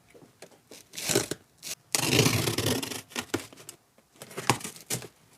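Parcel packaging being torn open by hand, with one long loud tear about two seconds in among shorter rustles and clicks of handling.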